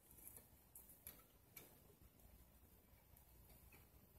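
Near silence broken by a few faint clicks and ticks from wire and alligator clips being handled at the rim of a glass jar.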